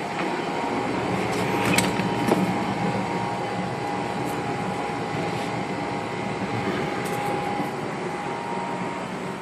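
A steady mechanical hum with a constant rushing noise and a faint steady whine, with a couple of light clicks about two seconds in.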